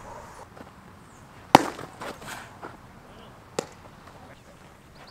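A baseball smacking into a leather glove: one sharp pop about a second and a half in, then a fainter click about two seconds later.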